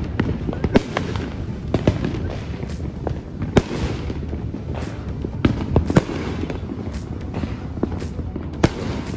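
Fireworks going off: sharp bangs and pops at irregular intervals, a dozen or so, over a steady low rumble.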